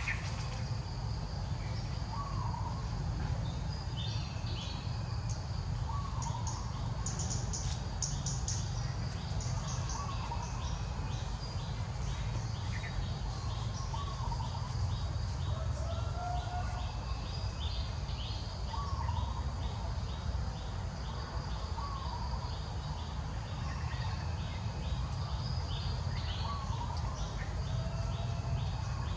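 Outdoor ambience: a bird repeating a short call every two to three seconds while other birds chirp, over a fast, regular insect chirping and a steady low rumble.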